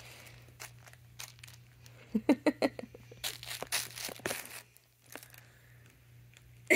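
A dog mouthing and tugging at a plush stuffed toy: rustling, crinkling fabric noises, loudest a little past the middle, with a short run of low pulsing sounds just before.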